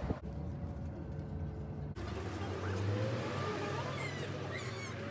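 Steady low rumble of a bus's engine and road noise heard inside the moving bus. About two seconds in it cuts to a busier bus interior with a different hum and a few faint high chirps.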